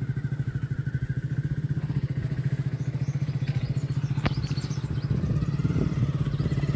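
Small commuter motorcycle engine running at low, steady revs, with a rapid, even exhaust pulse. A single sharp click is heard about four seconds in.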